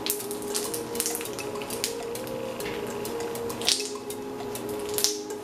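Homemade glue slime being squeezed and stretched by hand, giving many short wet clicks and pops, over quiet background music with a simple stepping melody.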